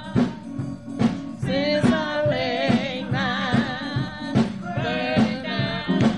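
A song with a lead voice singing wavering, held notes over a steady drum beat and bass.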